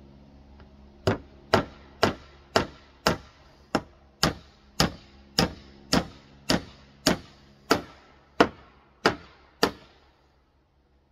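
Hammer nailing a rough-sawn slab offcut board: about sixteen steady blows, roughly two a second, stopping about a second before the end.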